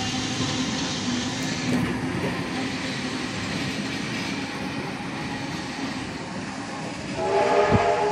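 Heritage passenger carriages hauled by steam locomotive 3801 rolling past on the rails as the train departs, a steady sound of wheels on track. A short horn blast sounds near the end.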